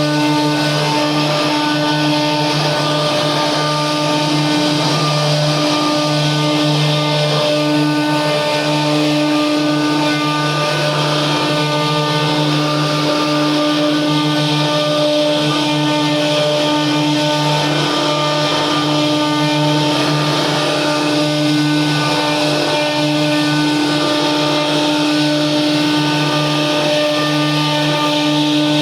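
CNC router running a 3D carving job: a steady motor whine made of several held tones over the noise of the cutter, keeping on without a break.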